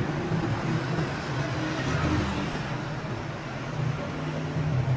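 Steady machine noise: a motor's low hum under an even hiss.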